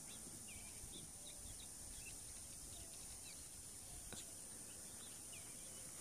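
Faint outdoor ambience: scattered short bird chirps, several each second, over a steady high hiss, with a single faint click about four seconds in.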